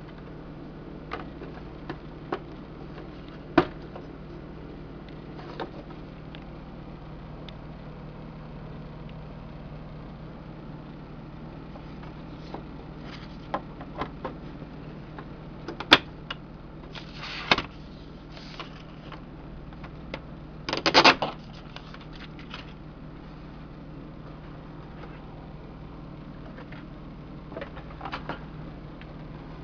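Handling noise from a Burroughs C2000 printing calculator: scattered clicks and knocks of its plastic printer cover and paper tape as the tape is threaded through the print mechanism, with a cluster of louder clicks midway and a short dense rattle about two-thirds of the way through. A steady low hum runs underneath.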